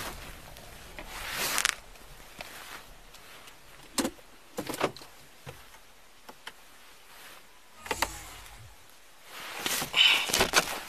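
Handling noises inside a car: clothing and gear rustling, a few sharp clicks about four to five and a half seconds in, a short low thump about eight seconds in, and a loud burst of rustling and clatter near the end.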